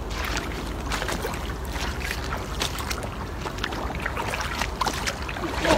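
Wind rumbling on the microphone over lapping river water, with scattered light splashes and ticks as a cast net's rope is pulled in hand over hand.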